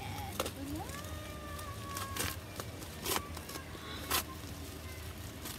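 A yellow padded paper mailer being torn open by hand: several short, sharp rips and crinkles, the loudest about four seconds in. About half a second in, a long high squeal rises and is held for over a second.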